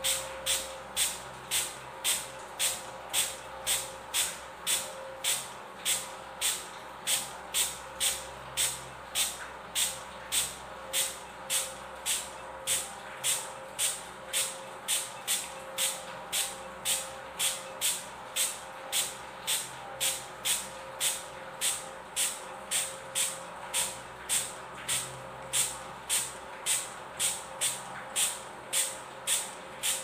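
Plastic trigger spray bottle spritzing water over and over, a short sharp hiss about twice a second in a steady rhythm.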